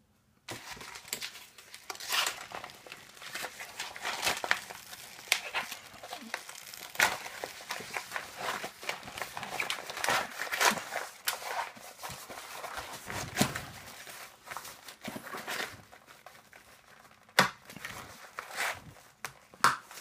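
Nylon pouch and plastic-packed Blizzard survival bag being folded and worked by hand: continuous crinkling and rustling with frequent sharp crackles, starting about half a second in.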